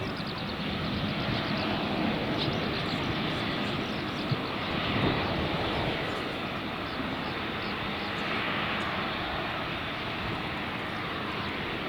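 Airliner engines running loudly and steadily as a plane passes near the airport, with wind buffeting the microphone.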